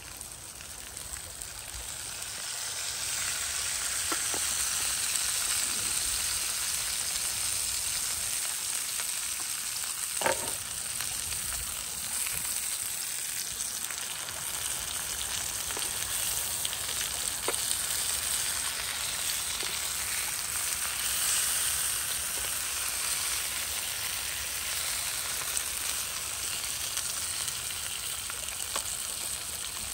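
Beef steaks and garlic cloves searing in oil on a ridged grill pan, sizzling steadily; the sizzle builds over the first few seconds. A single sharp tap sounds about ten seconds in.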